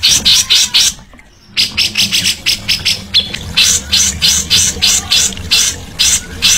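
Songbird chattering in rapid, short high notes, about four a second, with a brief silent break about a second in.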